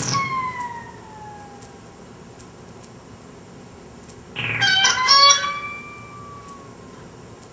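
Electronic creature noises from a touch-triggered sound converter. A falling tone trails away at the start, then about four seconds in a sudden pitched cry sounds and fades out in a long, slowly falling glide.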